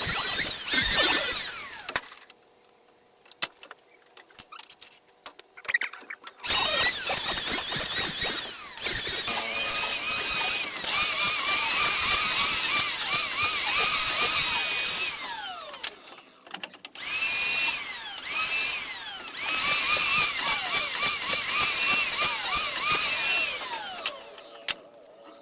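Handheld electric power tool working wood in long runs. Its motor whine dips and recovers again and again as it takes load. It stops for about four seconds near the start and again briefly about two-thirds of the way through.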